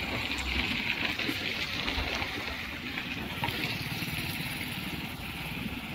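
Steady rush of river water pouring through a barrage, a constant hiss with an irregular low rumble underneath.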